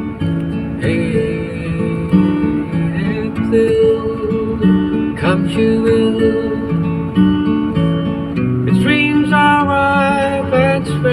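Background music: a song led by acoustic guitar, strummed and picked.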